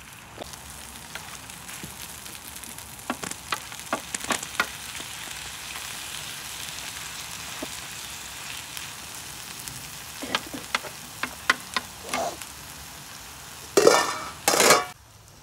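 Cauliflower and potatoes sizzling steadily as they fry in a steel frying pan, with a wooden spatula clicking and scraping against the pan in two spells of stirring. Two louder bursts of noise near the end.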